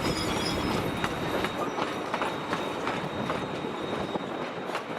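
Train rolling past slowly, its steel wheels clicking irregularly over the rail joints.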